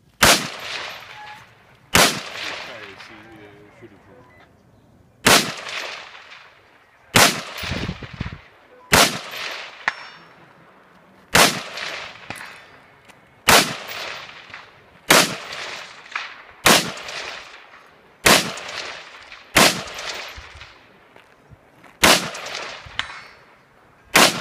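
Rifle shots fired one at a time in a competition stage, about fourteen sharp cracks spaced roughly one and a half to two and a half seconds apart, each trailed by a decaying echo.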